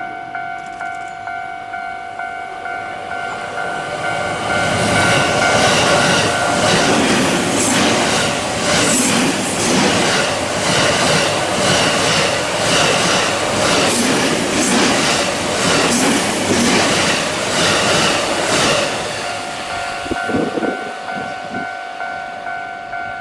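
A 285 series Sunrise Express electric sleeper train passing close by. Its wheels clatter rhythmically over the rail joints, loudest in the middle as the cars go by. A steady high ringing tone sounds at the start and again near the end.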